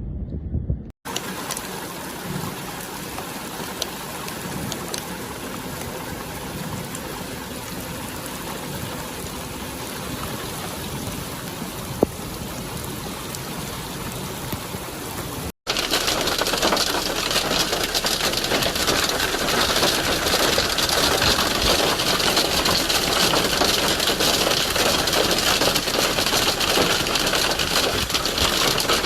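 Steady rushing noise of heavy rain and running water in a storm. It jumps louder and brighter after a cut about halfway through.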